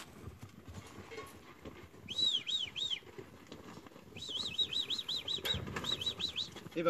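A bird calling in quick series of short, arching chirps: three at about two seconds in, then a fast run of about a dozen from about four seconds in. Underneath is a low, uneven scuffle of sheep hooves moving over the dirt of the yards.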